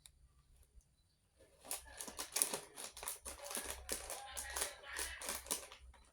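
Plastic snack packets crinkling as they are handled, a quick run of rustles and crackles starting about a second and a half in.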